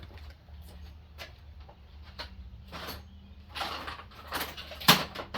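Tools and metal parts clinking and rattling as they are handled, growing busier towards the end with one sharp clank about five seconds in, over a steady low hum.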